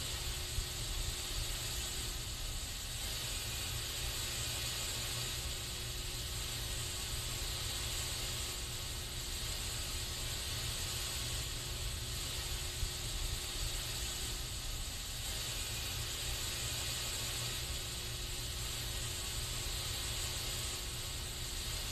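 Aerosol spray can hissing continuously, a steady, unbroken spray with slow gentle swells and a low rumble underneath.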